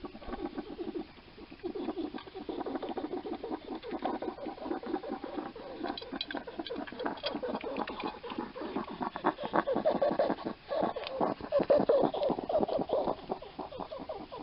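A European hedgehog snuffling with noisy, rattly breathing close to the microphone, getting louder in the second half. The owner puts the noisy breathing down to lung scarring from a past respiratory infection or lungworm.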